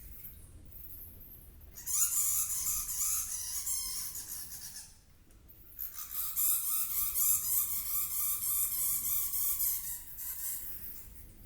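An animal calling twice, each a harsh, buzzy call several seconds long. The first starts about two seconds in; the longer second one comes a second after it ends and drops slightly in pitch as it fades.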